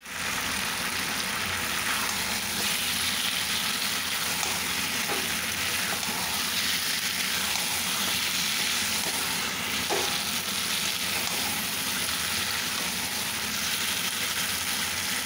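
Chicken kosha frying in its thick masala in a metal kadai, a steady sizzle as a metal spatula stirs it, with a couple of faint clicks of the spatula against the pan.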